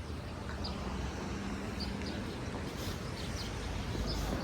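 Outdoor background: a steady low rumble with several faint, short chirps of small birds scattered through it.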